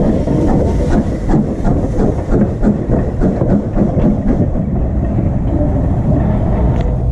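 Taff Vale Railway No.85 steam tank locomotive moving off along the line: a steady low rumble with many irregular knocks and clanks of exhaust beats and wheels on the rails.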